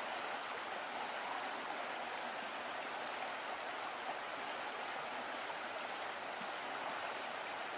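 Shallow stream flowing steadily over rocks.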